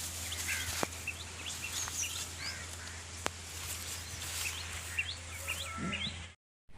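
Birds chirping in many short, rising calls over a steady low hum, with a couple of sharp clicks; the sound cuts out briefly near the end.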